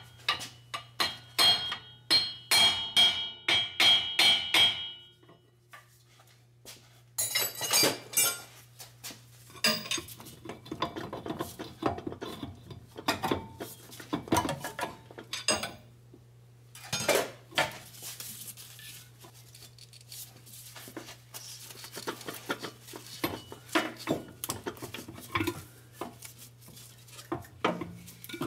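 Hand tools working on steel: rapid wrench clicks and metallic clinks with a ringing tone as the front drive shaft's bolts are undone and the shaft is worked loose. A dense run of clicks for the first few seconds, then a pause, then scattered clinks and knocks.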